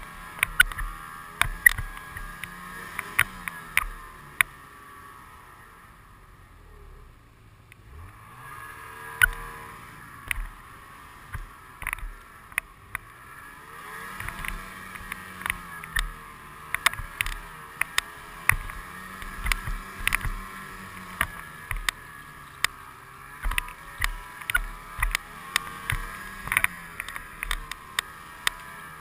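Snowmobile engine running as it travels a trail, its pitch rising and falling with the throttle, easing off for a couple of seconds about six seconds in. Frequent sharp knocks and rattles sound as the machine jolts over the uneven snow.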